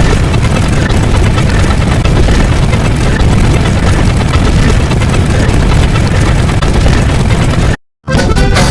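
Loud, dense rumbling noise, heaviest in the low end. It cuts out for a split second near the end, then starts again.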